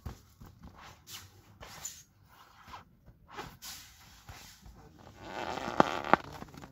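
Inflatable vinyl beach ball being handled: light crinkles and rubs of the plastic, then about five seconds in a louder rush of air escaping as the ball is pressed, with two short squeaks of the vinyl under the hand.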